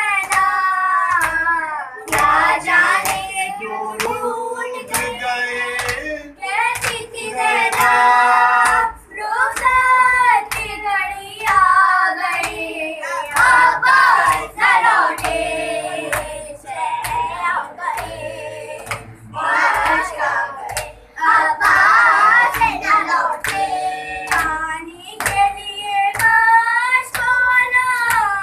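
Mourners chanting a Shia noha (lament) together, with a steady rhythm of sharp hand slaps on the chest (matam) keeping time with the chant.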